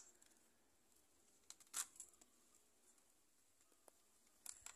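Mostly near silence, broken by a few faint, sharp crinkles of tissue paper and plastic mesh being picked away from the entrance of a stingless-bee log, the loudest about two seconds in and a quick cluster near the end.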